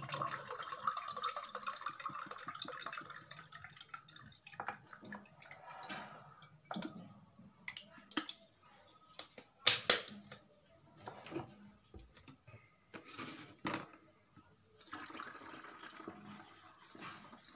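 Clear liquid poured from a plastic bottle into a drinking glass, a steady trickling stream, then glass and bottle knocking as they are handled. Near the end, a second stream as the glass is emptied through a plastic funnel into a spray bottle.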